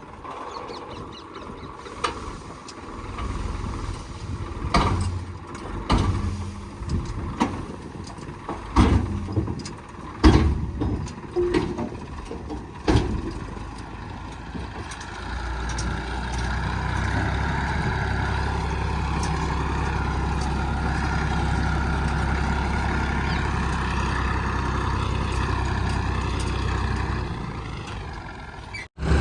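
Heavy diesel earth-moving machinery at work: a run of sharp metallic knocks and clanks for the first half, then a steady, louder engine drone under load until it cuts off abruptly.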